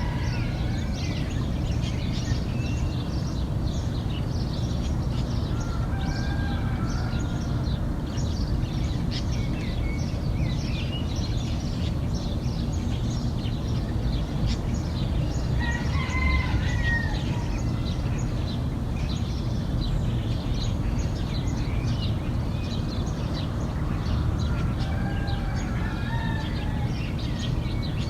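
Three rooster crows, each a drawn-out rising-and-falling call, about ten seconds apart, over continual chirping of small birds and a steady low background rumble.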